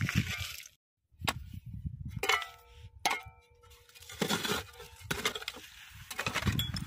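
A metal digging hoe chopping into stony, gravelly soil, with repeated crunching and scraping of loose stones. Twice, about two and three seconds in, the blade strikes rock with a ringing clink. The sound cuts out briefly just before a second in.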